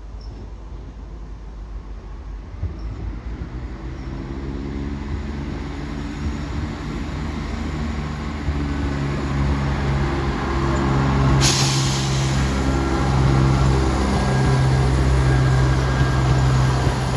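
A Northern Class 170 Turbostar diesel multiple unit approaching and passing, its underfloor diesel engines growing louder with a steady low drone. About eleven seconds in, a sudden hiss of air starts and slowly fades.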